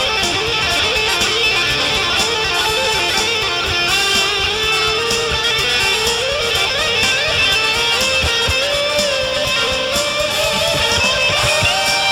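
Band music from a jam: guitar playing under a sustained lead melody line that bends and slides in pitch.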